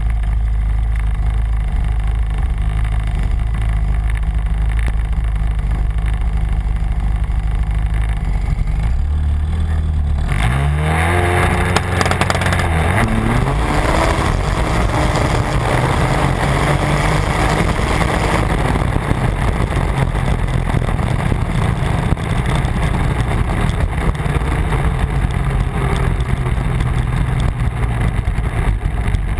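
Turbocharged Arctic Cat Z1 snowmobile's four-stroke three-cylinder engine idling with a steady low rumble. About ten seconds in it launches, the revs climbing in a rising pitch into a loud full-throttle drag run with a broad rushing noise. A few seconds before the end it eases off to a lower, steadier sound as the sled coasts.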